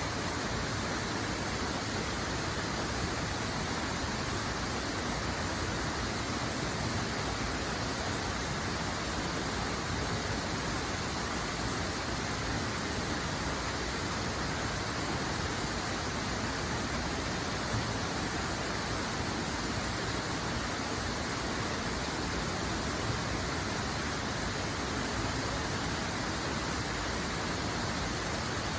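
Flowing water rushing steadily, an even hiss that does not change.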